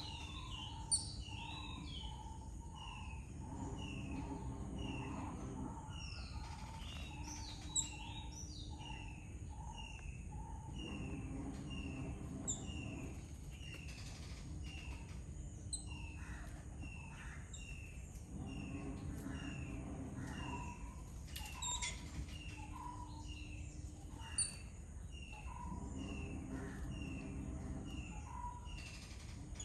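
Garden birds chirping and calling, several birds overlapping with quick repeated short notes, about two a second, over a low steady rumble. A few sharp clicks stand out here and there.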